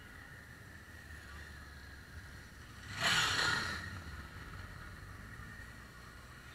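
Motorcycles riding past in a slow procession, a steady low engine rumble, with one bike passing close about three seconds in, the loudest moment, fading away within a second.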